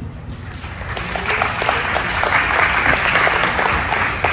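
Audience applauding, the clapping swelling up over the first second or so and then holding steady.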